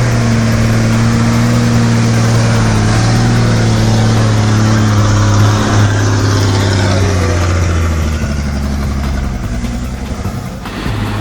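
A loaded logging truck's engine running under load: a steady low drone that dips slightly in pitch about six and again about eight seconds in, fades a little, then cuts off suddenly near the end.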